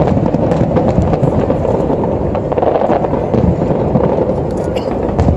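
Aerial fireworks display: many shells bursting at once, a continuous rumble of booms with dense crackling over it.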